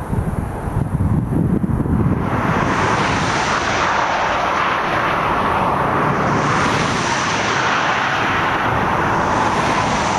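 Steady tyre and road noise from traffic on an open highway. Wind rumbles on the microphone for the first couple of seconds, then the hiss of the road noise sets in and holds.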